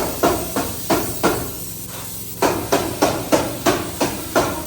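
Hammering: a steady run of sharp blows about three a second, breaking off for about a second a little over a second in, then carrying on at the same pace.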